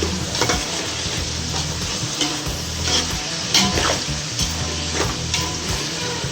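Onions and mint frying in hot oil in a pan, with a steady sizzle and a spoon stirring and scraping against the pan every second or so as they are sautéed toward brown.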